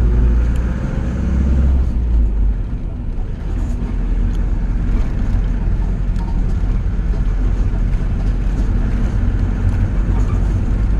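A motor vehicle driving along, with steady engine and road noise that sits mostly in the low end.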